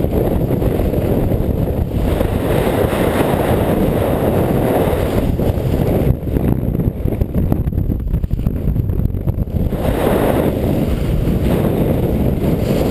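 Wind rushing and buffeting over the microphone of a camera carried by a skier moving downhill, with skis sliding on snow beneath it.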